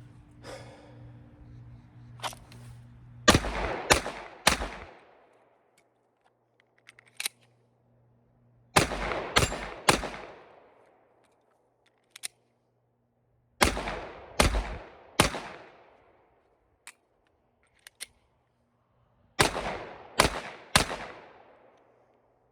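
Glock 48 9mm pistol with a compensated PSA slide and barrel firing four quick strings of three shots, each shot ringing off into an echo. Small clicks of magazine changes fall in the pauses between strings.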